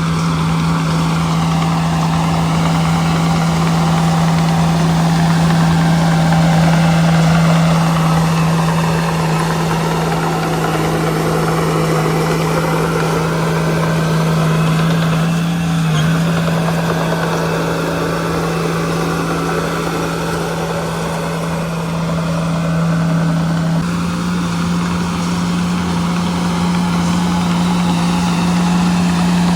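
Diesel engine of a small bulldozer at a dirt job site running steadily, its pitch stepping up slightly about 24 seconds in.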